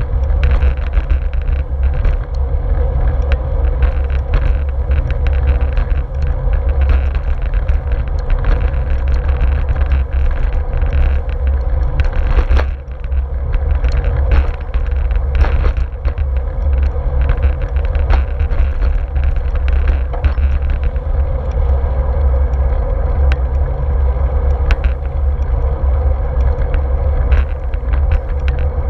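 Bicycle riding along a paved path, heard through a handlebar-mounted GoPro: a steady low rumble of wind and tyre-on-pavement vibration, with many small clicks and rattles from bumps in the surface.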